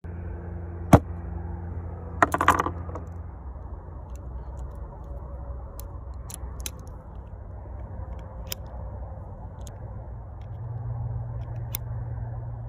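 Clicks from a revolver being handled: one sharp click about a second in, a short rattle of clicks around two and a half seconds, then scattered light ticks, over a steady low hum.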